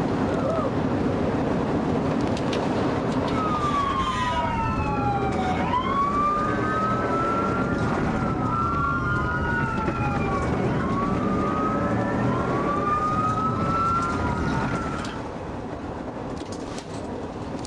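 Police siren wailing in rising and falling sweeps over loud road and engine noise from a moving car; the siren starts about three seconds in and stops about fifteen seconds in.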